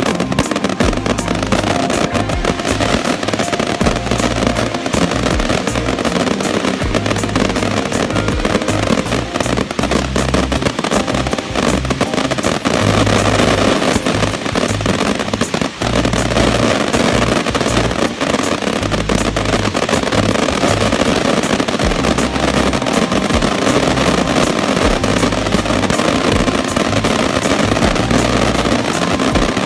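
A continuous barrage of daytime fireworks, dense rapid crackling and popping, heard together with music that has a deep, stepping bass line.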